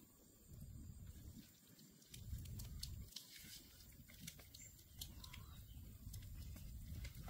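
Hands kneading and rubbing wet chili spice paste into a raw pig's head in a metal wok, giving faint squelching and many small clicks over a low rumble.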